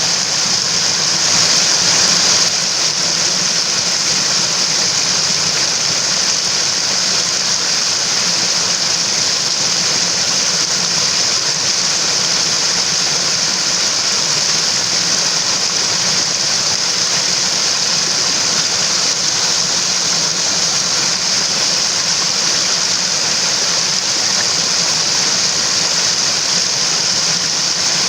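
Water in a mountain stream running steadily, a constant rushing hiss brightest in the high range, swelling slightly about two seconds in.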